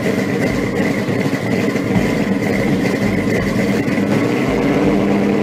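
A car engine running steadily, without revving.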